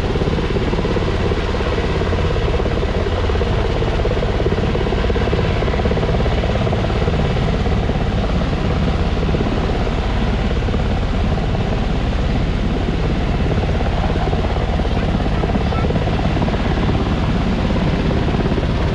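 Firefighting helicopter hovering low over the water while it fills its underslung bucket; the rotor and engine run steadily.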